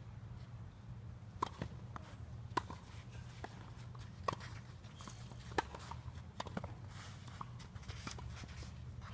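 Tennis rally on a hard court: racket strikes and ball bounces as sharp single pops every second or so, the four loudest in the first two-thirds, over a steady low hum.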